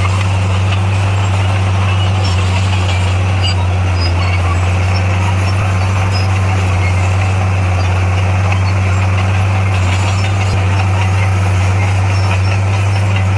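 Bulldozer's diesel engine running steadily at a constant low pitch.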